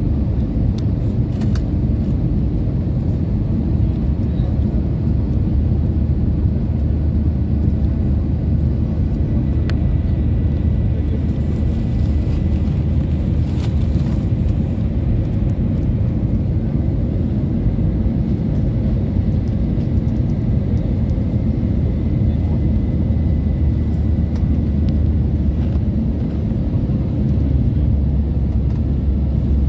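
Steady low roar inside the cabin of an Airbus A320neo on final approach: engine and airflow noise heard from a window seat. A faint high whine runs through the middle stretch, and a few light clicks stand out.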